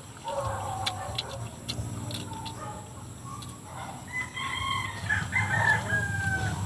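Chickens clucking, then a rooster crows about four seconds in, ending on a long held note that falls slightly. Short sharp clicks sound close by throughout.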